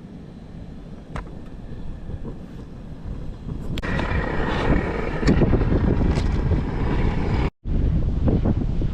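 Wind buffeting the microphone over the wash of the sea, growing much louder about four seconds in; the sound cuts out for an instant near the end.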